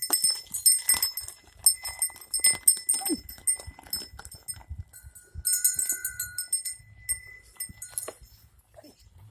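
An ox and a horse pulling a plough, with small bells jingling in bursts about three times and faint low thumps underneath.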